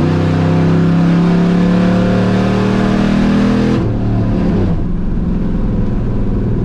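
The burnout truck's cammed V8, with headers and dual exhaust, pulling hard at full throttle, heard from inside the cab, its revs climbing steadily. About four seconds in the revs drop sharply and it settles into a lower, steady drone.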